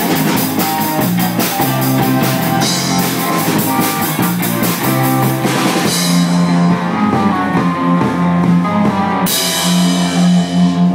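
Rock band playing live: electric guitar over a drum kit, with cymbal washes about three seconds in and again from about six to nine seconds.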